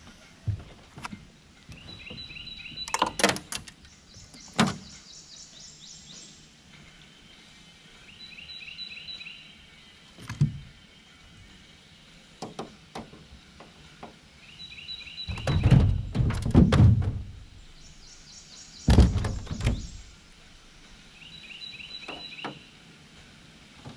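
Thumps and knocks on a jon boat's deck and hull as a person moves about and handles gear in the boat, with a cluster of heavy, booming thumps past the middle. A bird sings the same short phrase four times, about every six seconds.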